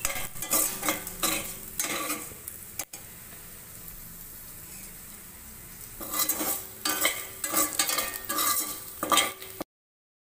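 Ivy gourd strips frying in oil in a steel pan, stirred with a spatula that scrapes and clatters against the pan, with a steady sizzle in a three-second pause between bouts of stirring; the fry is at its crisping stage. The sound cuts off abruptly shortly before the end.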